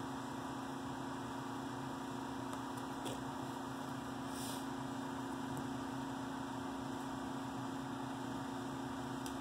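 Blower of a laminar flow hood running steadily: a constant low hum over an even rush of air, with a faint click about three seconds in.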